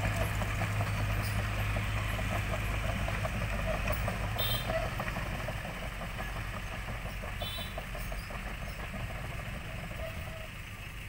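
Kobelco SK100 tracked excavator's diesel engine running steadily as the machine drives off, slowly fading as it moves away. Two short high beeps sound, about four and a half and seven and a half seconds in.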